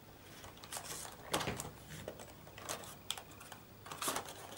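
Plastic laptop casing being handled and turned over on a table: a string of light knocks, clicks and rustles, the strongest about a second and a half in and again about four seconds in.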